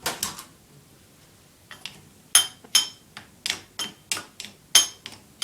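Faulty old light switch snapping and clicking as it is worked: one sharp snap, a pause of about a second and a half, then a quick irregular string of snaps, about three a second. The switch is defective and throws sparks.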